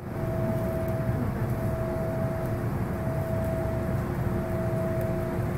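Inside an MTR M-Train car standing at the platform with its doors open: the steady hum of the stationary train's onboard equipment over a low rumble, with two steady tones held throughout.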